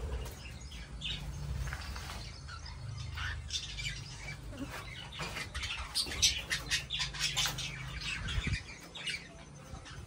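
Aviary birds, lovebirds among them, chirping and squawking, with a quick run of shrill chirps about halfway through.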